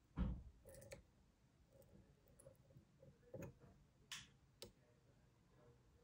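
Key being pushed into the bare brass plug of a gutted APECS BC euro profile cylinder, its pins clicking as they ride over the cuts: a knock just after the start, then a few light, separate clicks.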